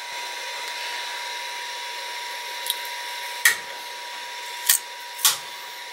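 A few sharp plastic clicks and taps as fingers press and pry at a 3D-printed part stuck to the BuildTak-covered print bed, the loudest three in the second half. Under them is a steady hum with a thin steady whine.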